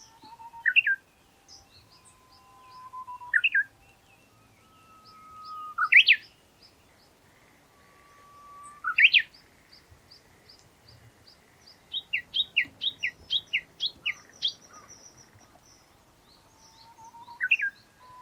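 Japanese bush warbler singing its 'hoo-hokekyo' song several times over: each a long steady whistle that breaks into a quick, loud flourish. About twelve seconds in comes its valley-crossing call (tani-watari), a rapid run of about ten repeated 'kekyo' notes over two and a half seconds. Faint high chirps run underneath.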